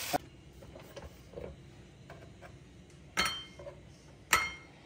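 A ceramic dinner plate clinking twice, about a second apart, with short ringing tones and a few faint taps between. A brief sizzle of frying is cut off at the very start.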